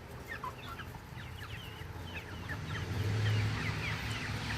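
A flock of chickens calling: many short, quick falling chirps and clucks overlapping. A low steady hum rises under them in the second half.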